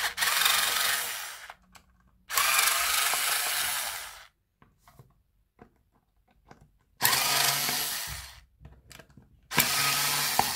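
Small cordless electric screwdriver running in four short bursts of a second or two each, backing screws out of a battery pack's plastic casing.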